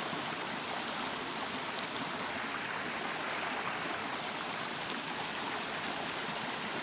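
Shallow mountain creek rushing and splashing steadily over rocks and boulders.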